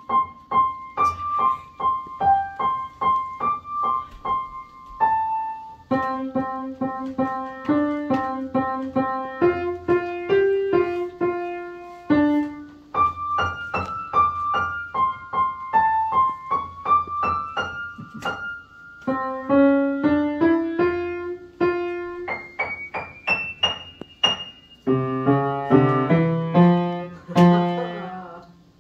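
Yamaha upright piano playing a simple piece: a melody over low accompanying notes, with a climbing run of notes about two thirds of the way through and fuller low chords near the end.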